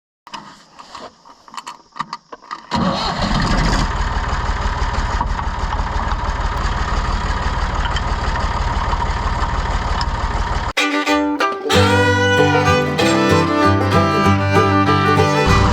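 An engine starts a few seconds in and runs steadily with a low rumble for about eight seconds, then cuts off abruptly. Background music with fiddle follows.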